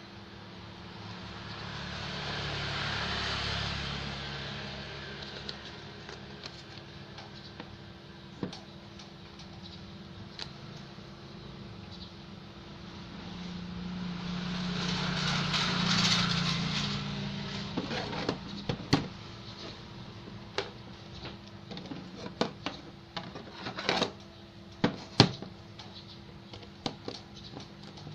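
Small, sharp clicks and taps of a smartphone being taken apart by hand, coming in quick irregular runs in the second half, over a steady low hum. Earlier, a wash of background noise swells and fades twice.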